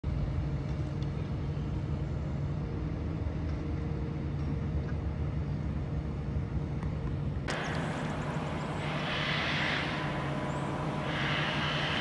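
Steady low engine rumble, a continuous drone with a few held tones. About seven and a half seconds in the sound changes abruptly, and two brief hissy swells follow near the end.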